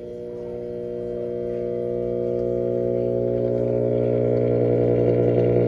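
Late-1960s General Electric tube radio humming loudly through its speaker on a dim bulb tester. The steady low hum with overtones grows louder as the set warms up, the sign of a bad filter capacitor.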